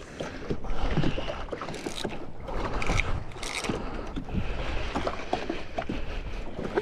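Fishing reel being wound in to retrieve a cast lure, a run of quick irregular clicks and rattles, with water noise around a jet ski.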